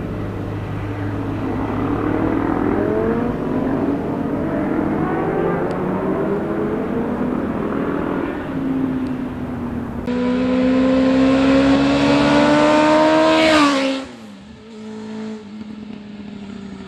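Motorcycle engines accelerating hard, their pitch climbing in steps as they shift gears. About ten seconds in, a louder bike revs up close and passes by, its pitch and loudness dropping sharply as it goes. A quieter engine follows.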